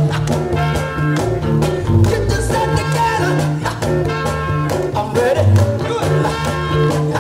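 Upbeat dance music with a steady beat.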